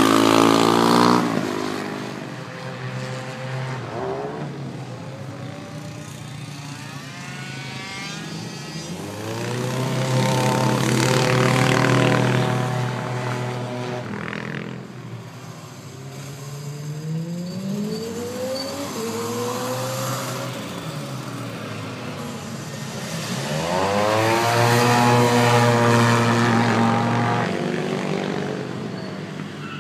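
Sport motorcycles lapping a race circuit. Their engines rev up and down in pitch through the corners, and the sound swells three times as bikes pass close.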